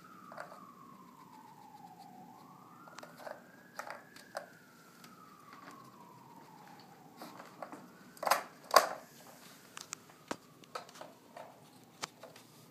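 Dog nosing and pawing at a plastic treat puzzle toy, Kyjen's Paw Hide, knocking its plastic caps: scattered light clicks and knocks, with two sharp, louder knocks a little past the middle and a quick run of small clicks after. Under it a faint siren wails, slowly rising and falling in pitch, fading out after about eight seconds.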